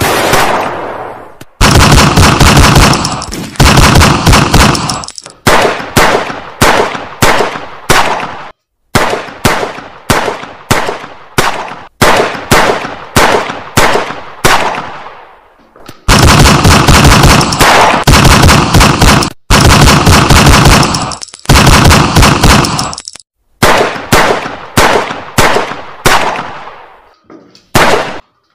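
Gunfire sound effects: single shots, each with a ringing decay, alternate with several-second bursts of rapid automatic fire, dubbed over a toy-gun shootout.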